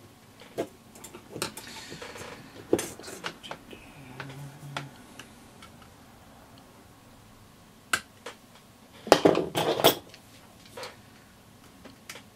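Scattered metal clicks and scrapes of a small hand tool against the Mullard LP1171 module's metal case and circuit board as the module is worked open, with a burst of louder clattering knocks about nine seconds in.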